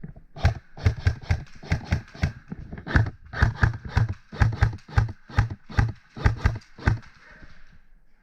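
Quick footsteps, about two to three steps a second, stopping about seven seconds in.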